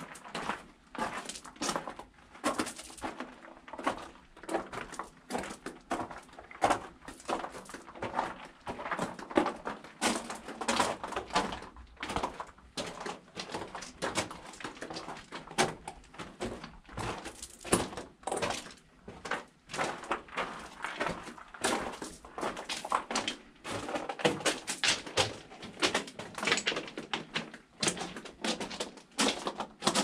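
Footsteps on a rough, gritty path: a continuous run of short scuffing steps and knocks, irregular in strength.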